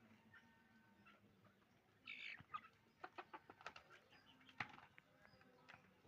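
Chickens in a flock, faint clucking and small calls, with a short louder squawk about two seconds in, followed by a quick run of sharp taps and clicks.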